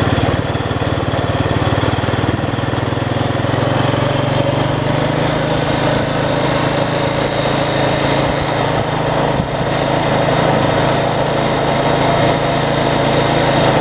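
ATV engine running steadily, with a slight shift in pitch about five seconds in.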